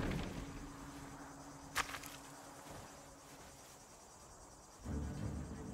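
Quiet desert ambience with a faint insect-like chirring. A single sharp tap comes a little under two seconds in, and a low sound swells in near the end.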